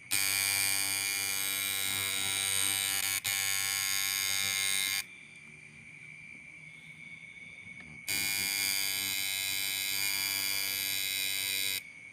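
Coil tattoo machine buzzing steadily, run twice for several seconds with a pause between and a brief break partway through the first run.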